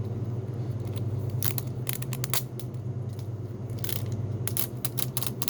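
Plastic packaging of a Mini Brands capsule crackling and clicking as it is worked open, in two clusters of sharp clicks, over a steady low hum.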